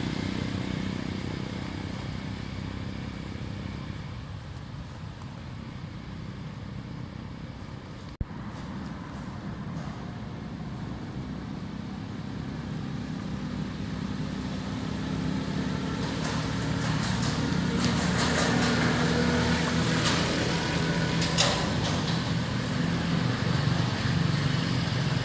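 A motor vehicle engine running steadily, fading for a few seconds and then growing louder again from about halfway in, with a few faint clicks near the end.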